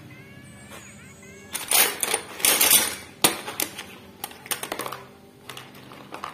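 Quick runs of metallic clicking and rattling from hand work on a bare cylinder head's rocker-arm assembly, with a blue pump oil can in use. One sharp knock comes about three seconds in, then scattered lighter clicks.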